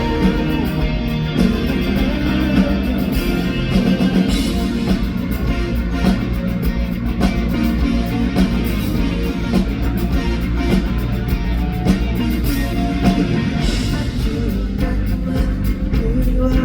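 Live rock band playing a song with singing, guitar and a steady drum beat, heard loud through the venue's PA.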